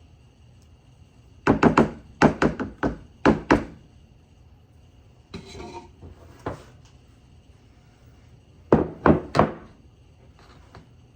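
A kitchen utensil knocked sharply against cookware in quick clusters of taps, as casserole mixture is knocked off it into the pans. A brief scrape comes in between.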